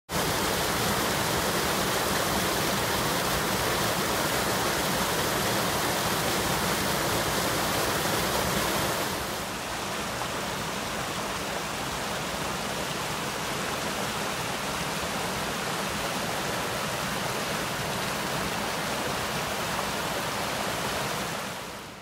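Mountain creek rushing over small rock cascades, a steady roar of running water that becomes a little softer about nine seconds in.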